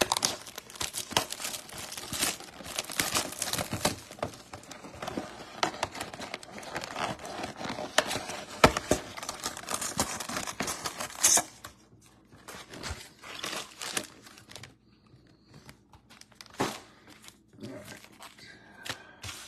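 A 2022 Bowman Chrome Mega Box of trading cards being torn open by hand, its packaging crinkling and tearing in a busy run of crackles for about eleven seconds. It is followed by sparser rustles and a few clicks near the end.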